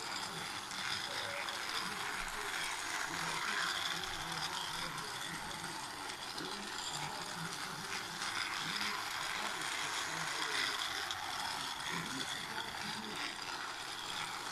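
Battery-powered toy train's small motor and gears running steadily as it circles a plastic track.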